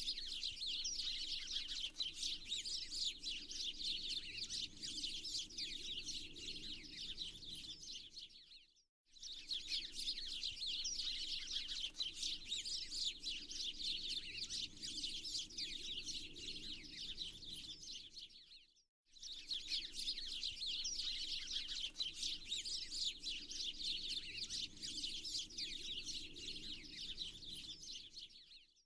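Dense chorus of small songbirds chirping and twittering over a faint low background noise, in a recorded loop about ten seconds long that breaks off for a moment and restarts twice.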